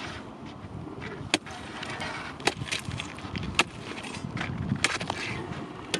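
Metal ice pick striking and chipping into candled lake ice: about four sharp hits, a little over a second apart, with a few lighter taps between. The ice has candled into vertical crystals and is breaking up.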